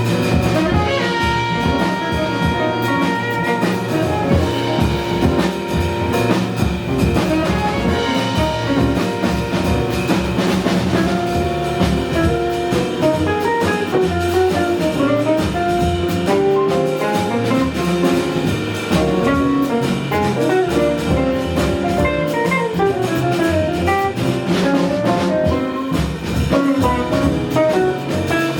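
Small jazz band playing, a melodic lead line over bass and drum kit.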